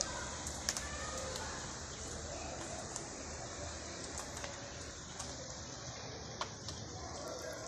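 Steady rain falling, an even hiss with scattered sharp ticks.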